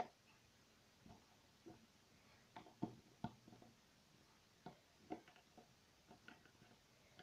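Near silence with faint, scattered clicks and taps from fingers handling a small plastic toy figurine and winding a pipe cleaner around it.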